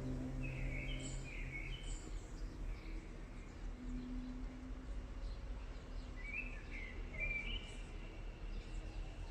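Birds chirping in two short bursts of quick calls, one early and one later, over a faint steady low rumble, as the last held note of a song fades out at the start.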